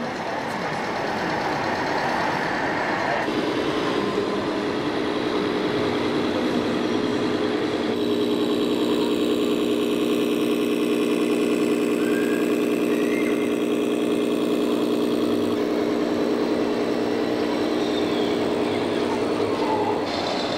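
A scale RC truck's engine-sound module plays a steady diesel truck idle. It starts about three seconds in and holds an even tone until just before the end, over a background of crowd murmur.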